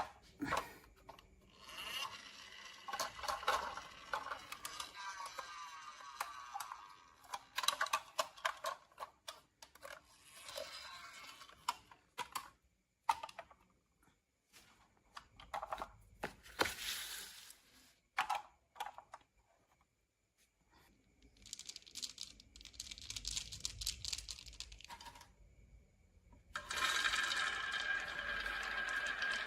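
Marbles rolling and clattering down HABA wooden slopes and tracks, with rolling rumbles broken by many sharp clicks as they drop and strike the wood. There are a few short pauses, and from near the end a denser, steadier rolling rattle.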